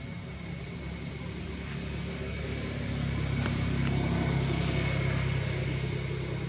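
Motor vehicle engine passing by. Its low rumble grows louder to a peak about two-thirds of the way through, then eases off.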